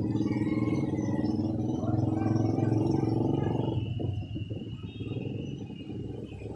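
Flux-cored MIG welding arc from 0.9 mm flux-core wire, a steady dense crackle for about four seconds, then breaking up into a choppier, weaker sputter toward the end.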